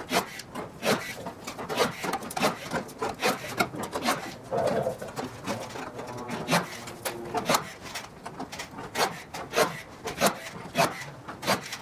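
Hand work on an aircraft wing's metal parts: a run of sharp, irregular clicks and knocks, about one or two a second, with a brief squeak-like tone a little over four seconds in.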